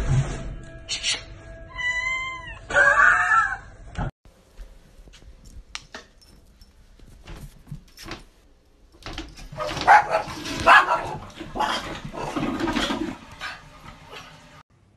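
Cats meowing, in short clips cut together: wavering, pitch-bending meows in the first few seconds, then after a sudden cut a few scattered clicks and knocks, and a louder, noisier stretch of animal calls in the second half.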